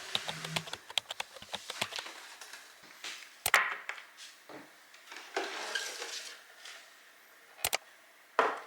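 Containers and kitchen items being handled and set down: a run of light clicks and taps, a louder knock about three and a half seconds in, a short sliding rub, and two sharp clicks near the end.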